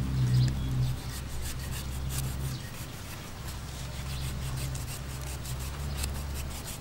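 Knife blade scraping and slicing through the skin and firm white flesh of a sugar palm fruit, a run of short rasping strokes over a low steady hum.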